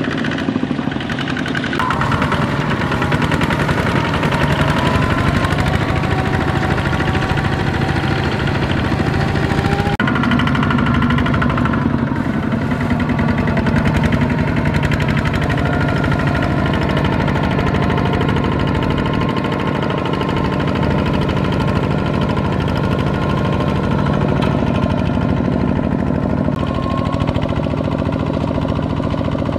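Single-cylinder diesel engines of two-wheel walking tractors (power tillers) running steadily while pulling loaded trailers, with a fast, even engine beat. The tone shifts abruptly about 2 s and 10 s in as the shot changes.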